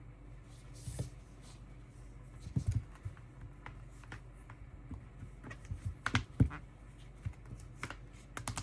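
Handling noise: scattered clicks and light knocks at an irregular pace, with a few louder knocks about two and a half seconds in and around six seconds in, and no ringtone sounding.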